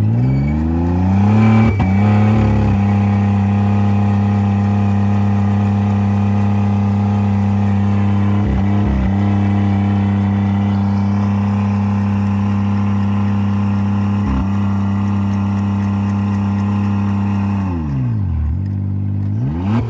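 Straight-piped Ford Escape engine revved up and held at high, steady revs, dipping briefly twice. Near the end it falls off and revs up again.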